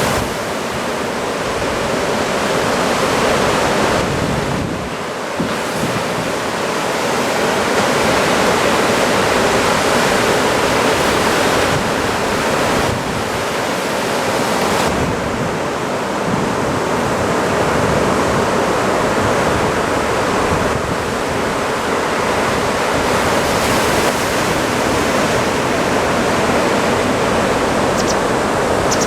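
Typhoon-swell surf breaking and washing in without a break, with wind rumbling on the microphone.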